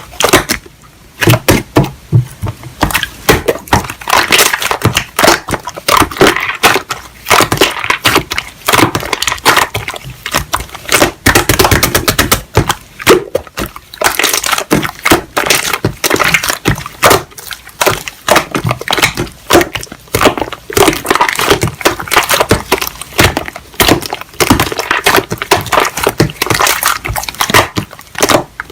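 Slime being squeezed and worked by hand, giving a dense, irregular run of sharp clicks and pops.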